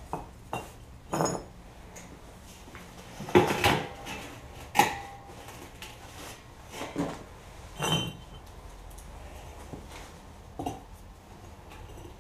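Firebricks being set into the bottom of a steel barrel: a run of separate hard knocks and clinks of brick on brick and on the drum, the two loudest about three and a half and five seconds in, one leaving a short metallic ring.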